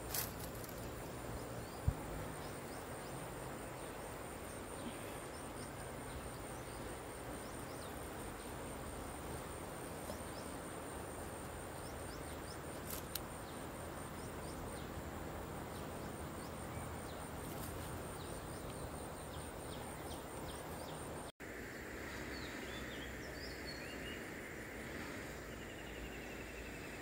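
Steady outdoor background noise with an insect's fast, high pulsing trill above it and a couple of faint clicks. After a cut about 21 seconds in, a few short high chirps sound over the noise.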